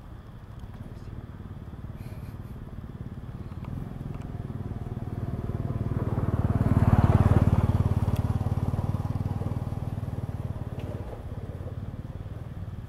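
A motor vehicle's engine passing by, swelling slowly to its loudest about halfway through and then fading away.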